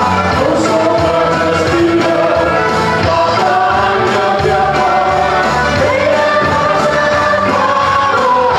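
A congregation singing a hymn together, many voices at once, over amplified instrumental accompaniment with a stepping bass line.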